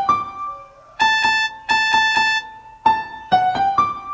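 Huawei phone ringtone melody in a piano-like tone: a short phrase of a few notes, a run of evenly repeated notes, then the opening phrase again near the end.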